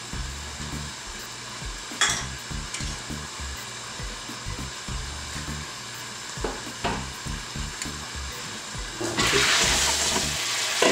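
Food sizzling in a frying pan. It is a faint steady hiss with a few light clicks at first, then much louder about nine seconds in.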